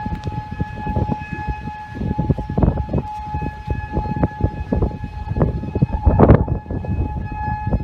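Outdoor tornado warning siren holding a steady tone, with gusty wind buffeting the microphone in loud low rumbles and thumps, strongest about six seconds in.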